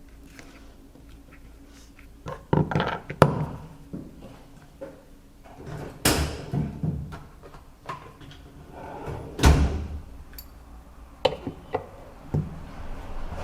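Irregular knocks, clicks and thumps, with a few longer rustling swishes, as small hard objects are handled and set down.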